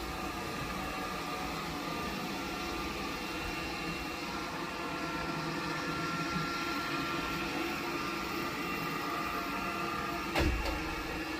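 Cuckoo Power Clone all-in-one robot vacuum station running with the robot docked, giving a steady mechanical hum with a few held tones. A single thump comes about ten seconds in.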